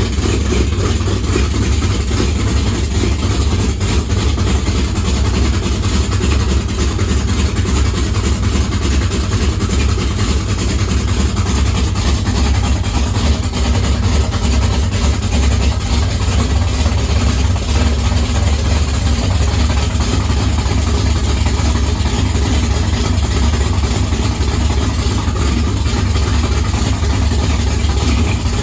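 A 440 big-block V8 idling steadily, with a screeching noise that the owner suspects is a vacuum leak.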